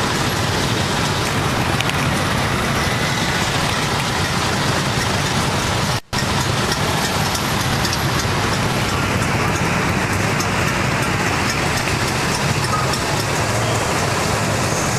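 Motorcycle riding through city traffic, heard from the pillion seat: a steady mix of engine and road noise that cuts out for a moment about six seconds in.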